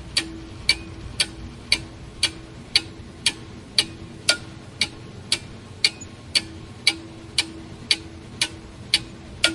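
Clock ticking steadily, about two even ticks a second.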